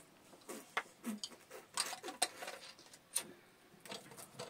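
Scattered light clicks and taps of small household items being handled: a small plastic bottle set down and a metal teapot moved at the fire.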